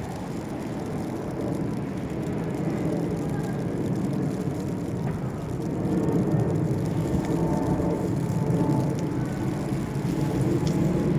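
Steady low rumble of vehicle noise, growing gradually louder.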